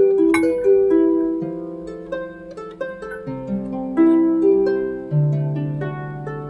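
Background music: plucked, harp-like notes over a slow-moving bass line.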